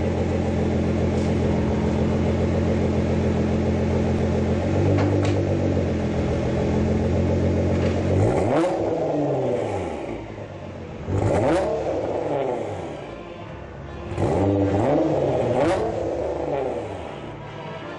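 Nissan GT-R's twin-turbo V6 idling steadily through its exhaust, then revved in three throttle blips from about eight seconds in, each rising and falling in pitch.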